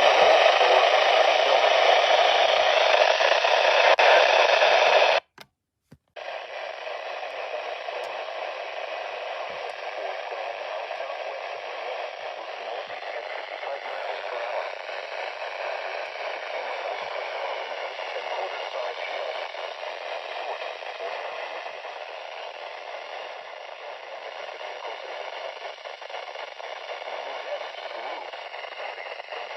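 Weather radio receiver hissing with static. The hiss is loud for about five seconds, cuts out completely for under a second, then comes back steady and quieter.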